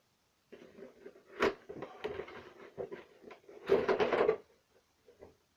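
Cardboard toy box being opened by hand: scattered scrapes and clicks of the packaging, a sharp snap about a second and a half in, and a louder stretch of rustling cardboard around four seconds in.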